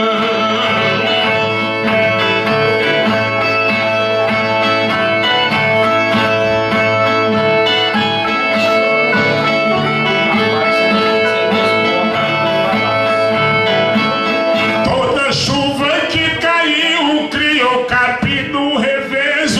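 Viola played solo as an instrumental interlude between sung verses of a repente, with sustained plucked-string notes. About fifteen seconds in, the playing changes to a busier, choppier strumming.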